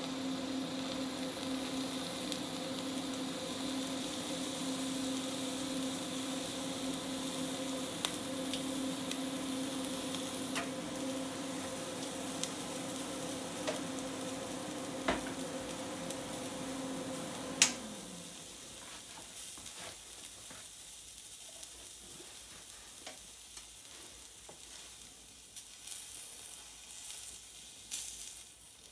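Meat sizzling with scattered crackles on a welding-heated steel tube, over a steady electrical hum from the welding machine. About two-thirds of the way through, a click comes and the hum drops in pitch and stops as the machine winds down; the sizzle carries on, quieter.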